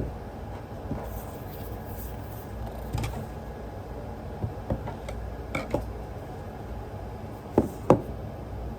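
Scattered light clicks and taps of objects being handled, with two sharper knocks close together near the end.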